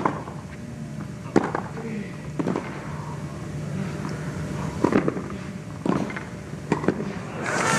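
Tennis rally on a clay court: about six sharp racket-on-ball strikes roughly a second apart over a low crowd background. Crowd applause swells up near the end as the point finishes.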